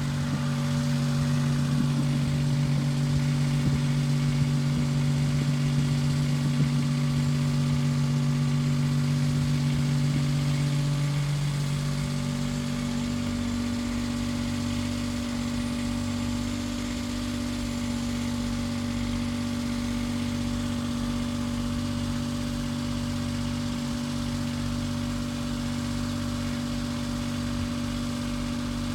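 Small auxiliary pony motor on a bucket truck running steadily while it drives the hydraulic pump that works the boom. About halfway through, its hum steps down slightly in pitch and loudness as the hydraulic load changes.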